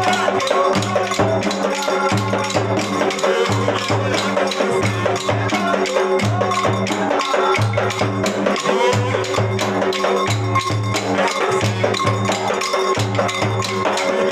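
Bumba-meu-boi percussion band in the sotaque da Baixada: wooden matraca clappers clacking densely over frame drums, with a steady low pulse repeating a little faster than once a second.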